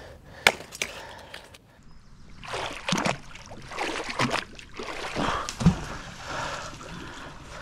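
Fishing magnet being hauled on a rope out of muddy canal water: water sloshing and splashing in repeated bursts, with a sharper thump a little over five seconds in.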